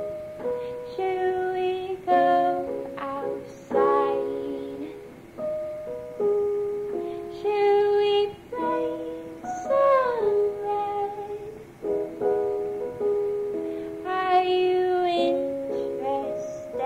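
Soundtrack music: a cover song of plucked strings with a woman singing.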